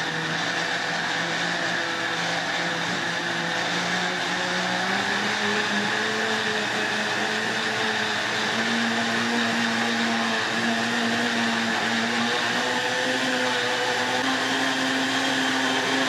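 Britânia Fortis Turbo 1200 W blender running loud with only water in its jar, a steady motor whine whose pitch climbs in steps as the speed is turned up.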